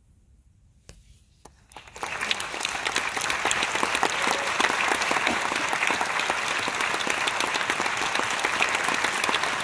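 Concert audience applauding: a hush, then a few scattered claps, and about two seconds in the whole crowd breaks into steady, sustained applause.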